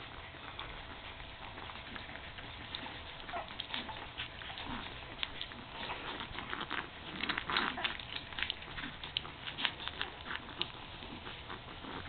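Puppies suckling from their mother: a run of soft, quick wet clicks and smacks, thickest in the second half, with an occasional faint puppy squeak.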